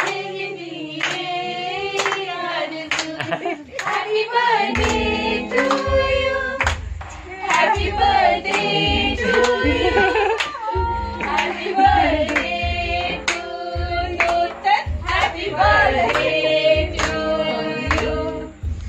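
A group of women and girls singing a song together, keeping time with hand claps. From about five seconds in a low beat joins, pulsing roughly once a second.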